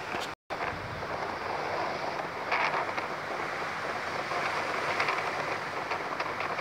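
Strong storm wind with rain, rushing through thrashing trees in a steady noise that swells now and then. The sound cuts out for an instant near the start.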